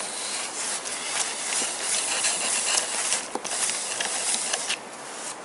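Socket wrench ratcheting as 10 mm bolts are turned out of an engine plate: a rapid run of metal clicks blurring into a hiss, with a few louder clicks.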